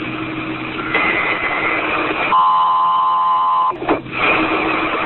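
Open two-way radio channel hissing with static over a steady low hum, broken about halfway through by a steady radio beep lasting over a second.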